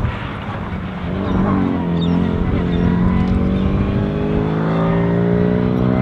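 Austin A30's small A-series four-cylinder engine pulling hard under acceleration on a rally stage. The note dips briefly about a second in, climbs in pitch over the next second or so, then holds high and steady.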